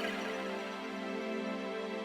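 Soft background music: sustained, gentle chord tones.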